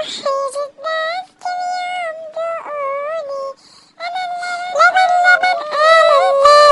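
Dancing cactus toy singing an Arabic children's song in a high-pitched electronic voice, with a short break about three and a half seconds in.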